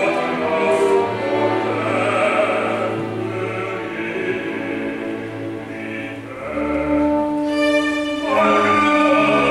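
Live opera: a baritone singing with orchestral accompaniment, strings prominent. About two-thirds of the way through, the music grows louder into long held notes.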